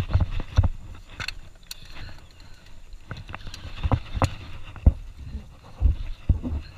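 Irregular knocks, taps and low thumps of fishing gear being handled against an aluminium boat hull, with a few sharp clicks.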